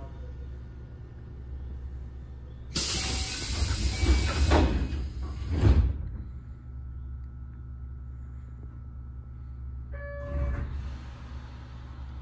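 Keio 7000 series train standing with a low steady hum, then a loud burst of air hiss lasting about three seconds, typical of the pneumatic doors closing. Near the end a brief tone sounds.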